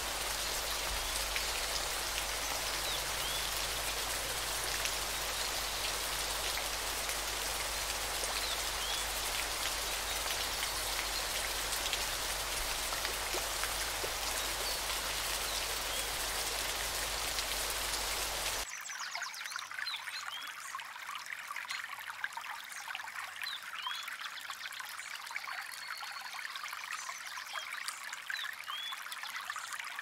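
Rainforest water ambience: a dense, steady hiss of falling water with faint short chirps. About 19 seconds in it cuts abruptly to a softer trickling of water, where the chirps stand out more clearly.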